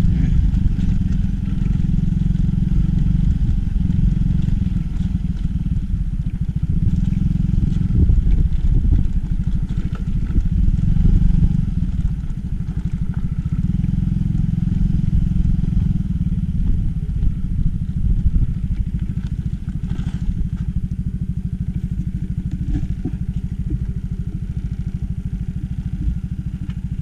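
Motorcycle running along a dirt track, a steady loud low rumble of engine and wind on the microphone, easing a little about twelve seconds in.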